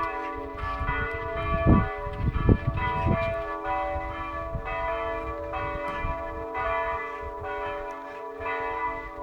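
Church bells ringing, stroke after stroke, their tones overlapping and sustaining. A few louder low thumps land in the first three seconds.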